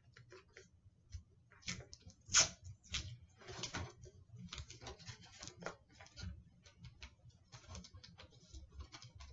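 Masking tape being pulled off its roll, torn and pressed down onto cardboard over wire coat-hanger ends: irregular crinkling, tearing and clicking noises.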